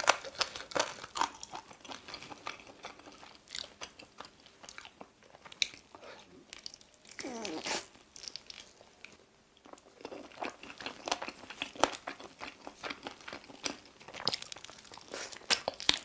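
Close-miked eating of spicy sauced chicken wings and drumsticks: bites and crunchy chewing in an irregular run of sharp crunches. About seven seconds in comes a short hummed vocal sound that rises in pitch.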